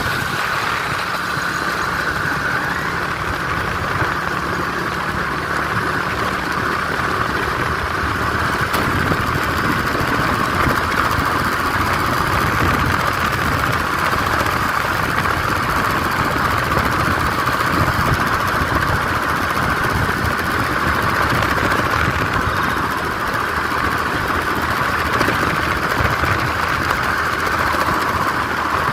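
An engine running steadily, with no revving or changes.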